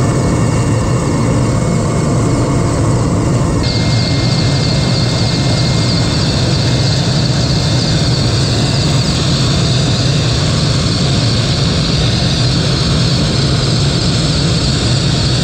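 Helicopter engines and rotor heard from on board in flight: a loud, steady low drone with a broad hiss over it. The hiss brightens abruptly about four seconds in.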